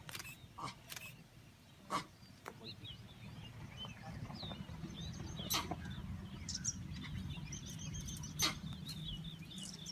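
Birds chirping and calling, with a few sharp clicks scattered through and a low steady hum that grows from about three seconds in.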